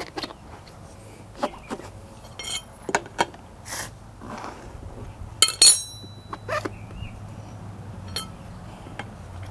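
Metal hand tools and wheel parts clicking and clinking as they are handled and set down during a motorcycle tyre change, with one bright ringing clink about halfway through.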